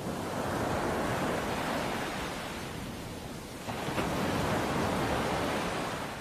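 A rushing noise like wind or surf that swells, dips and swells again.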